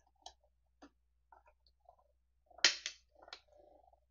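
Spellbinders Platinum 6 manual die-cutting machine being hand-cranked, the plate sandwich passing through the rollers as an intricate die cuts cardstock: faint clicks at first, then a few sharp cracks about two and a half seconds in and a short rasp near the end.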